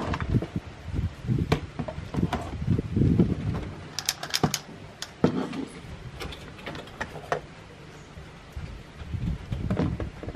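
Small household objects, a plastic basket and a ceramic mug among them, being handled and set down on a wooden desk: a run of irregular knocks and clicks, with a cluster of sharper clacks about four seconds in.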